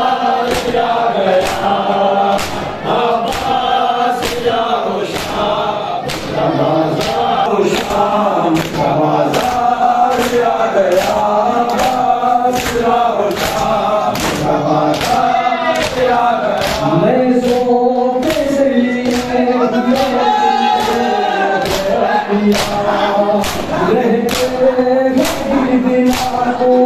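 A group of men singing a noha, a Shia lament, in chorus, led by singers at a microphone. The crowd beats their chests by hand (matam) in a steady rhythm of sharp slaps under the singing.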